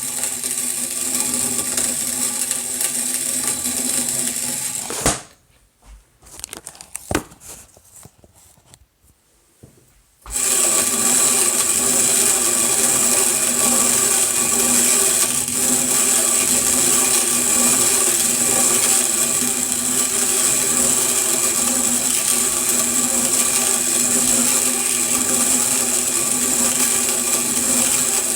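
Rok manual coffee grinder being hand-cranked, its burrs grinding coffee beans with a steady rasping whirr. About five seconds in, the grinding stops for around five seconds, with only a few clicks, then resumes.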